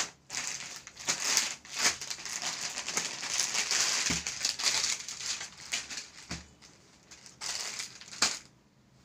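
Clear plastic packaging crinkling and rustling as a folded suit piece is unwrapped by hand, dense and continuous for about the first six seconds, with one more short crinkle near the end.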